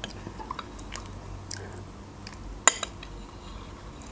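Close-miked eating of a soft raspberry, yogurt and cottage-cheese dessert with a spoon: quiet chewing and small wet mouth clicks, with one sharp clink of the metal spoon against the glass bowl about two-thirds of the way through.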